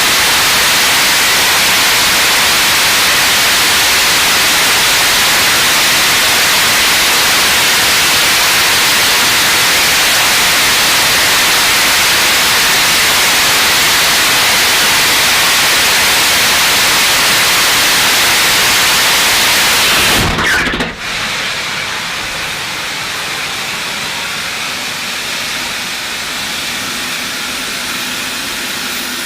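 Launcher E-1 3D-printed, regeneratively cooled liquid rocket engine firing with a steady, loud noise, then shutting down abruptly about twenty seconds in, leaving a quieter hiss.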